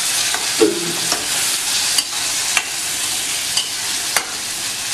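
Chopped tomatoes and onions frying in oil in a stainless steel pan, sizzling steadily as a metal spoon stirs them, with a few sharp clicks of the spoon against the pan.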